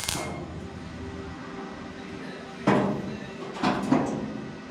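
Two short metallic clunks or scrapes from sheet-metal panel work, about a second apart, each fading quickly, over steady background music.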